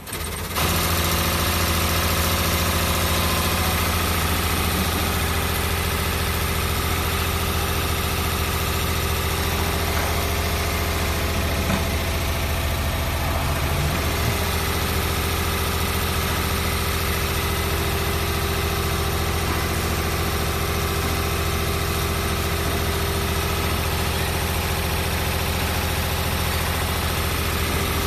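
Multi-spindle CNC needle winding machine for brushless-motor stators running at speed: a steady mechanical hum with a strong low drone that cuts in abruptly about half a second in and holds level throughout.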